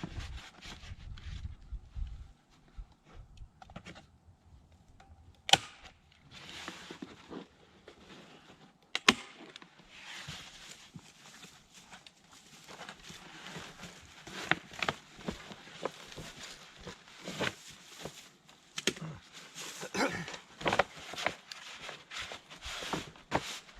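Felt roofing paper rustling and crinkling as it is handled and pressed against a wooden beehive, with sharp snaps of a staple gun fastening it, the two loudest about five and nine seconds in.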